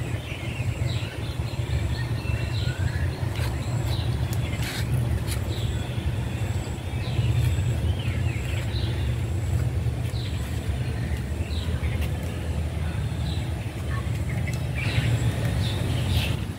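Small birds chirping in short scattered calls over a steady low rumble.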